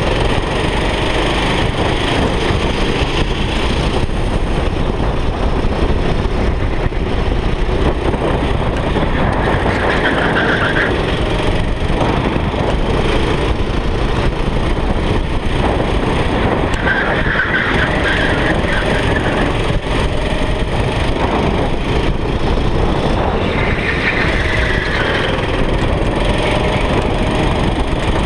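Go-kart engine heard from an onboard camera at racing speed, its pitch rising and falling with the throttle, under heavy wind noise on the microphone. Short high squeals come three times, about ten, seventeen and twenty-four seconds in.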